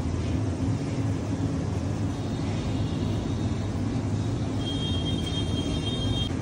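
A steady low rumble with a faint hum underneath, and a thin high whistling tone for a couple of seconds near the end.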